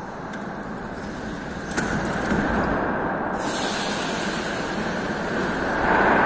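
Metro train at the platform: its doors shut with a knock about two seconds in, a sudden hiss of air starts a little later, and near the end the train gets louder as it begins to pull out.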